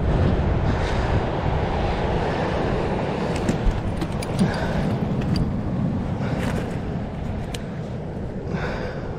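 Wind buffeting the microphone in a steady low rumble, with surf washing on the rocky shore beneath it. A few light clicks come about three to five seconds in.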